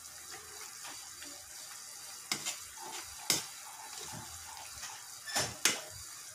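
Metal ladle stirring soup in an aluminium pot, clinking sharply against the pot about five times, in pairs near the middle and near the end, over a steady hiss.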